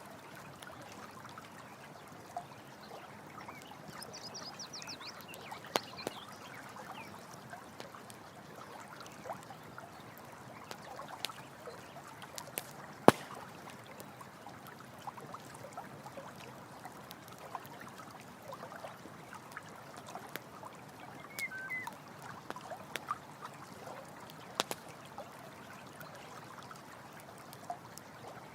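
Running stream water trickling steadily while a campfire crackles, with irregular sharp pops, the loudest about halfway through. A few faint chirps come and go over it.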